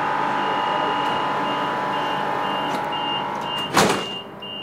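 Door-closing warning on a Madrid Metro Serie 8400 train: a high beep repeating about two to three times a second over the train's steady hum. The doors shut with a single loud thump near the end.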